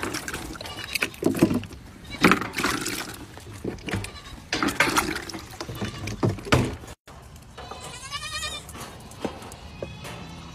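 Goat kids bleating, among knocks and handling bumps. About eight seconds in comes one long, wavering bleat.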